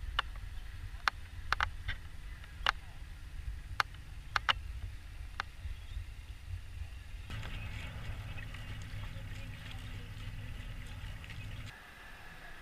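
Low rumble of wind on the microphone aboard a kayak, with a scatter of sharp clicks and taps in the first half, then a broader steady hiss from about seven seconds in. Near the end the rumble drops away, leaving a faint steady whine.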